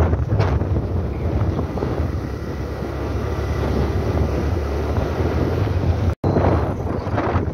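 Wind rushing over the microphone of a moving motorcycle, a steady low rumble with the bike's engine running underneath. The sound drops out completely for an instant about six seconds in.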